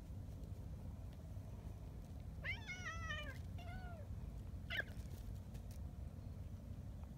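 Tabby cat crying out while wrestling with another cat: a drawn-out, wavering meow about two and a half seconds in, a shorter one right after, and a brief sharp cry near five seconds.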